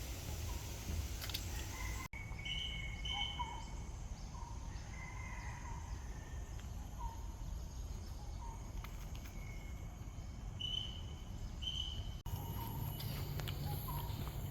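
Several birds calling in forest: short whistled notes repeated every second or so, with higher paired chirps now and then, over a steady low background noise. The background changes abruptly twice, about two seconds in and near the end.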